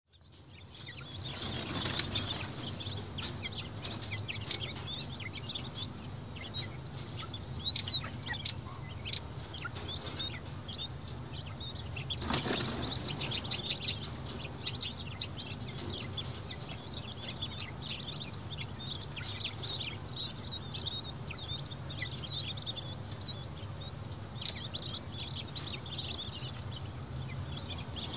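King quail chicks peeping: many short, high chirps, with a brief rustle about twelve seconds in.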